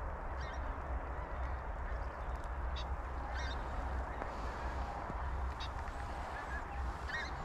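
A flock of wild geese calling high overhead: short, scattered honks over a steady rumble of wind on the microphone.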